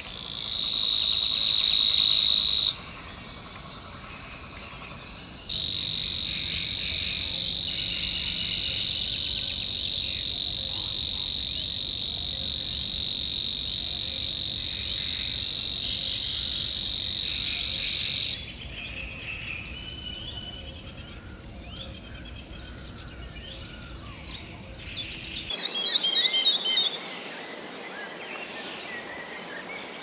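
Savi's warbler singing its reeling song: a long, steady, high trill. It breaks off after about two seconds, then resumes for about thirteen seconds. After it stops, other small songbirds chirp and sing, with a quick run of descending notes a few seconds before the end.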